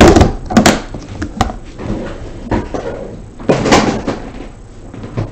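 Clicks and knocks of a hard-shell trading-card briefcase being handled, several sharp knocks spread through, the loudest about three and a half seconds in.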